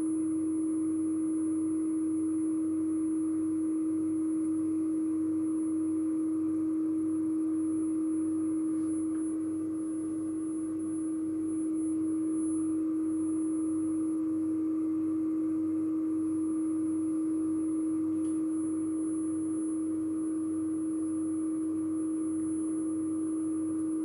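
Steady 315 Hz sine test tone from a reference cassette played back on a Nakamichi CR-4 tape deck, a fainter 10 kHz test tone above it, used as the reference for setting the playback head azimuth. The level dips slightly about ten seconds in.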